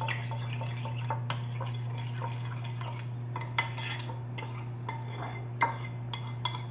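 Metal spoon stirring a thick sauce in a ceramic bowl, scraping and clinking against the bowl's side about six times, the loudest clink just over five seconds in.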